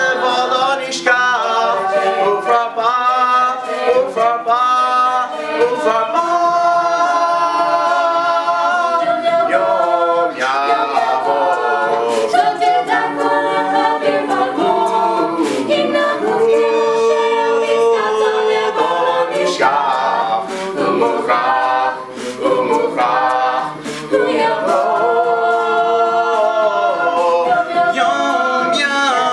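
Mixed-voice a cappella group of men and women singing an Israeli pop song in Hebrew, several voice parts in close harmony with no instruments.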